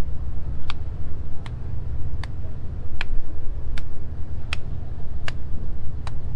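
Sharp ticks at a slow, even pace, about one every three-quarters of a second, over a steady low rumble.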